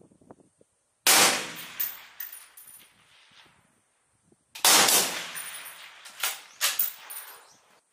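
Two shots from a bolt-action sniper rifle, about three and a half seconds apart, each trailing off in a long echo. Sharp clicks and knocks follow each shot as the bolt is worked.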